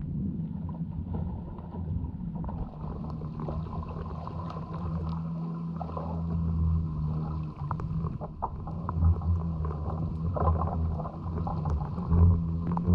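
Underwater sound picked up by a camera hanging deep in the sea: a steady low droning hum with scattered small clicks and knocks.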